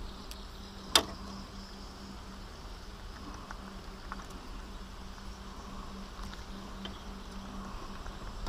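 Handling noise: a single sharp click about a second in, over a steady low hum and a low rumble.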